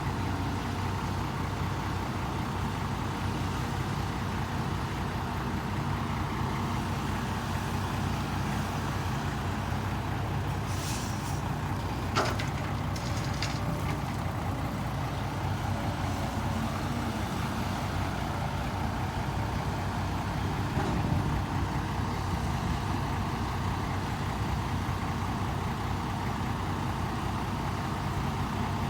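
Ten-wheel truck's turbocharged diesel engine running steadily through a 4-inch exhaust, with a few short hisses of air and a click a little before halfway through.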